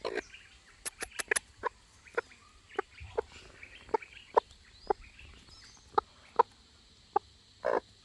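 Chicken clucking: a string of short, sharp clucks at irregular intervals, with a slightly longer call near the end.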